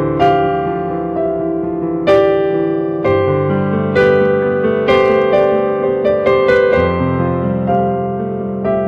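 Piano playing slow chords, a new chord struck about once a second and left to ring and fade.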